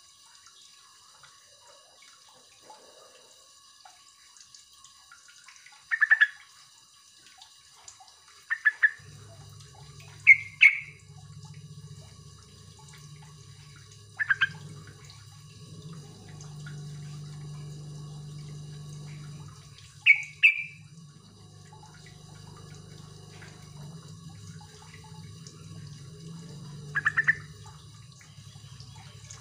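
Yellow-vented bulbul giving short, sharp calls, about six of them spaced several seconds apart. A low steady hum runs underneath from about nine seconds in.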